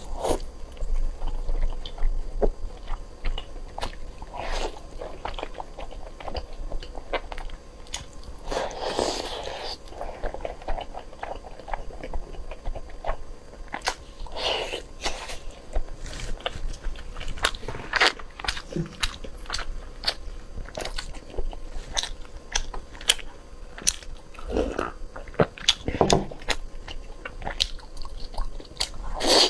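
Close-miked biting and chewing of glazed braised pork belly, with several louder bites among the continuous mouth sounds.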